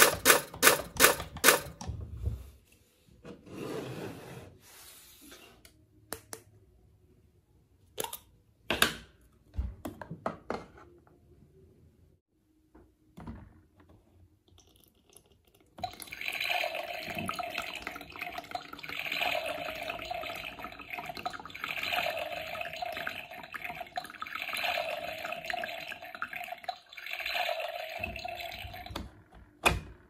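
Toy coffee machine running for about thirteen seconds, a steady whir that swells about every three seconds and then stops suddenly. Before it, a run of sharp plastic clicks and taps as the toy pieces are handled.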